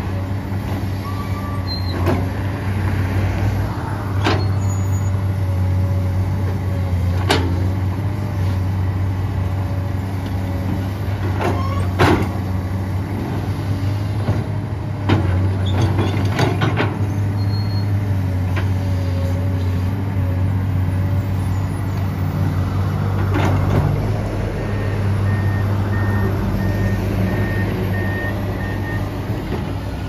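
Komatsu PC200-8M0 excavator's diesel engine running steadily under load while it clears ground. About ten sharp knocks and clanks are scattered through it as the machine works.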